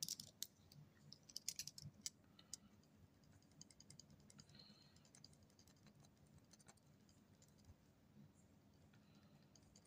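Faint clicks and taps of a pen being picked up and handled, followed by the soft, intermittent scratching of a broad-nib calligraphy pen drawn over paper.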